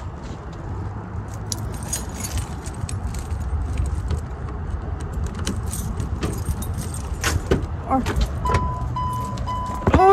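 Car keys jangling and clicking as they are carried, over a steady low rumble. About a second and a half before the end, a car's door chime starts beeping in a steady repeated tone.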